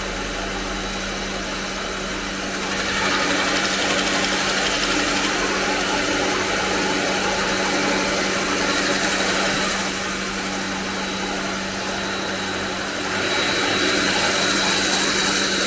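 Small electric belt sander running with a steady motor hum, as thin wooden utensil pieces are held against the moving sanding belt, giving a hiss that grows louder about three seconds in, eases off, and rises again near the end.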